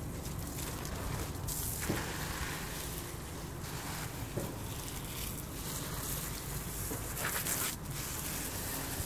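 Wind buffeting a phone's microphone: a steady, ragged rumble with hiss over it, and a louder hiss for a moment about seven seconds in.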